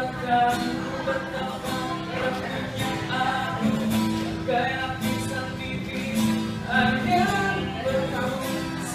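A man singing with his own strummed acoustic guitar, a street musician performing a slow ballad.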